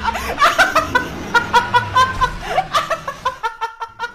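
High-pitched laughter: a quick run of short pulses, about four to five a second, that thins out near the end.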